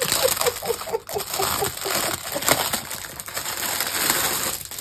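Thin clear plastic wrapping crinkling and rustling as it is pulled and peeled by hand off a fabric zip bag. It dies away near the end.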